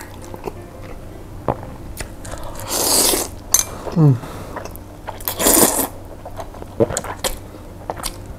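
A person slurping up mie ayam (chicken noodles), with two long slurps about three and five and a half seconds in. Small wet chewing clicks fall between them, and a short falling hum comes about four seconds in.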